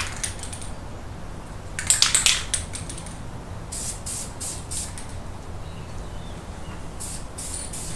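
Aerosol can of Dupli-Color high-temperature ceramic caliper paint spraying in several short bursts, the loudest about two seconds in.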